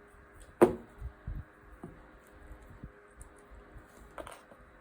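Quiet handling sounds of weaving loops being worked across a potholder loom: light scattered taps, with one sharp click about half a second in.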